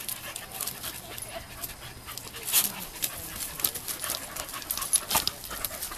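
Dogs panting and scuffling on wood-chip mulch as they play, with scattered short, sharp sounds; the loudest come about two and a half seconds in and again about five seconds in.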